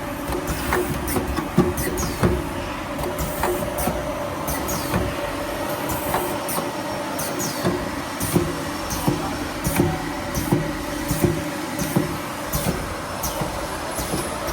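Rotary automatic perfume filling and crimping machine running: a steady mechanical hum under frequent sharp clicks and knocks, several a second, some with a brief metallic ring.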